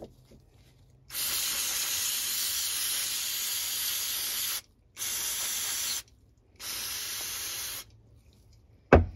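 Aerosol carburetor cleaner sprayed into the carburetor's holes and passages in three hissing bursts, one long and two short. A sharp knock near the end.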